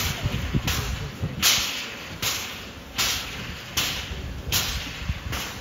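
Steam locomotive's exhaust chuffing as it runs slowly: eight sharp, even chuffs about three-quarters of a second apart, with low knocks from the running gear underneath.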